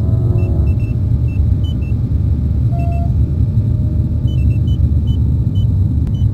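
Sound-design soundscape: a loud, steady low rumble like city traffic, with short high electronic beeps scattered over it and a brief held tone about three seconds in.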